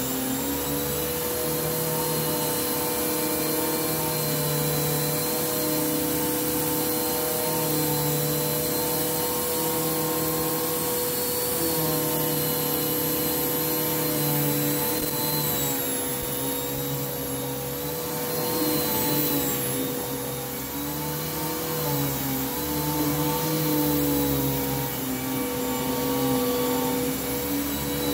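Bissell Lift-Off Revolution Turbo upright vacuum cleaner running steadily while it is pushed over carpet, picking up hair and fluff. Its motor hum shifts slightly in pitch every few seconds as it moves.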